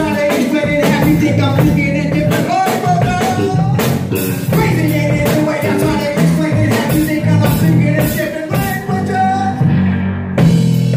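A live band playing, with trombone, electric bass, guitar and drums, with steady drum hits and a loud accent near the end.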